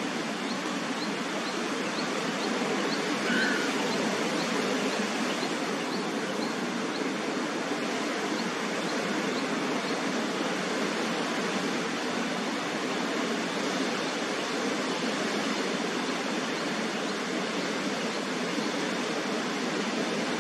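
Steady rushing outdoor noise, with faint short high ticks repeating about twice a second during the first several seconds.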